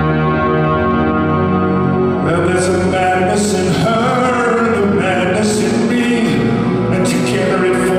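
Live performance of a slow song: a steady held keyboard drone, joined about two seconds in by a man singing over it.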